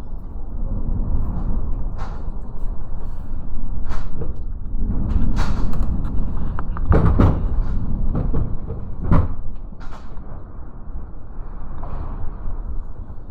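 Typhoon wind blasting the microphone in gusts, with several sharp knocks or rattles, about one every one to two seconds through the middle.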